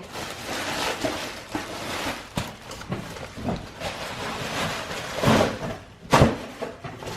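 Plastic parts of a bagless vacuum cleaner being handled and fitted together: rustling, clicking and knocking, with a sharp knock about six seconds in.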